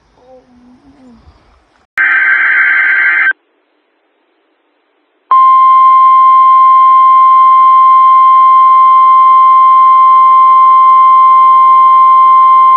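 An emergency alert broadcast: a short burst of digital SAME header tones, then, after a pause of about two seconds, the loud, steady single-pitch alert tone of about 1050 Hz used by NOAA Weather Radio, signalling a warning to follow.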